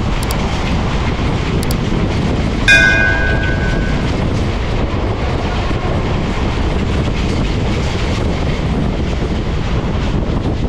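Mumbai suburban EMU local trains running side by side: a steady rumble and rattle of wheels on rails, heard from aboard one of them. About three seconds in, a short, high ringing tone sounds for about a second.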